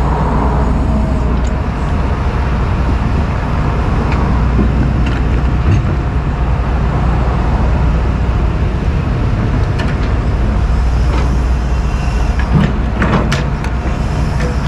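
Diesel engine of a John Deere 245G track excavator running steadily under load while the boom swings and the bucket works, with a few sharp knocks near the end.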